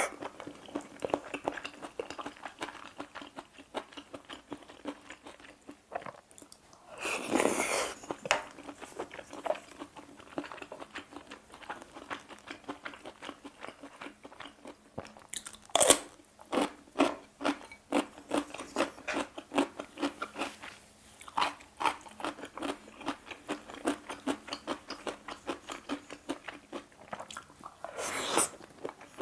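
Close-miked chewing and crunching of chonggak (young radish) kimchi and pasta, in a steady rhythm of about two to three chews a second. A loud crunchy bite comes about sixteen seconds in, and longer noisy bursts around seven seconds in and near the end.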